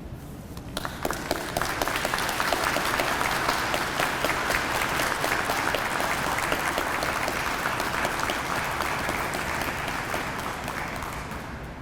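Audience applauding: scattered claps begin about half a second in, quickly build to steady applause, and die away near the end.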